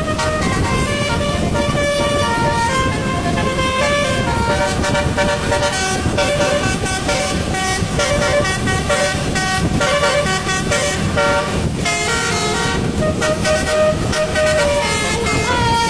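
Bus basuri horn, a multi-note musical air horn, playing a tune of held notes that step up and down in pitch, over a steady low rumble of engine and road noise.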